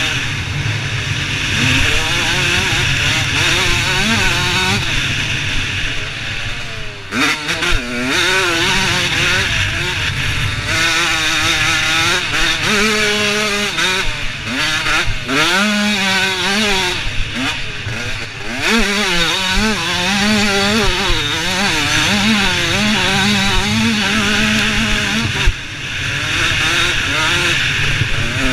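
Supermini motocross bike's engine at race pace, heard from onboard: revving up and down again and again as the rider shifts and rolls on and off the throttle, with brief cuts in the sound, and wind rushing over the microphone.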